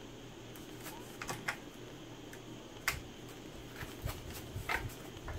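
A few light, sharp clicks and taps from hands working a CPU cooler's mounting bracket onto a motherboard, with a dull thump or two near the end.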